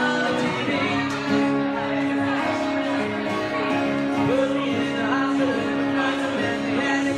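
Live band music: a man singing a 90s rock cover over strummed acoustic guitar, amplified through a PA.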